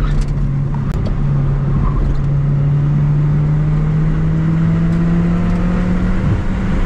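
Mazda MX-5's 1.8-litre VVT four-cylinder engine pulling under load on track, heard from inside the car through the driver's helmet camera. Its note dips about a second in, then climbs slowly and steadily as the car accelerates.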